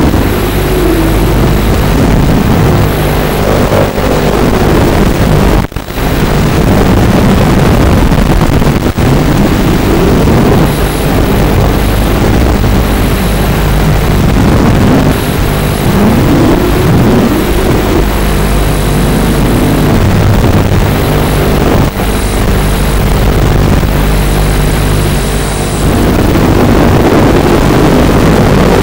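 Walkera F210 racing quadcopter's brushless motors and propellers whining, the pitch rising and falling with the throttle, with a brief dropout about six seconds in.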